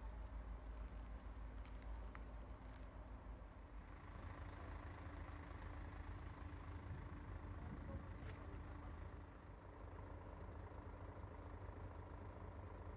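Steady low rumble of a motor vehicle running, faint.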